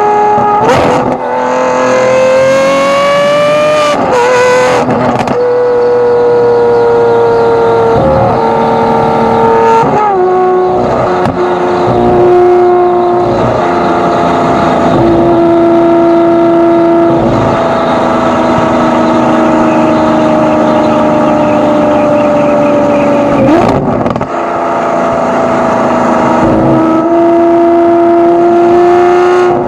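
Lamborghini Aventador SVJ's V12 heard right at its Gintani exhaust while driving: the revs climb over the first few seconds, then break and step down at gear changes. For most of the rest it runs at steady, slowly easing revs, with another shift about two-thirds of the way in.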